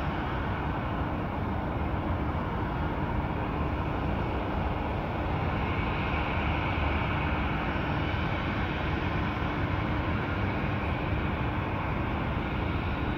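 Distant jet airliner's engines running on the runway, a steady broad roar with a faint hum, growing slightly louder about halfway through.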